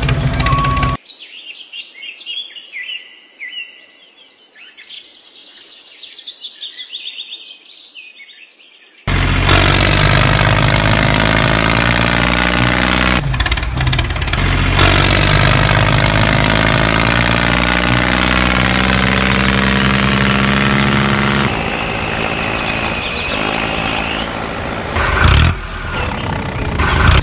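Birds chirping for several seconds, then a small engine running loudly and steadily for the rest, its pitch wavering slightly.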